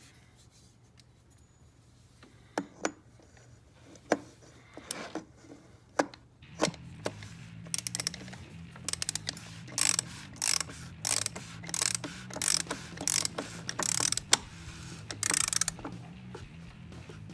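Ratchet wrench with a 36 mm socket snugging down the oil filter housing cap until it bottoms out. A few separate clicks and knocks come first, then about a dozen short runs of ratchet clicking.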